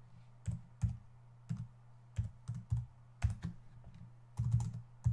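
Computer keyboard keys typed in short irregular runs of separate keystrokes as numbers are entered, with a quick cluster of strokes near the end, over a steady low hum.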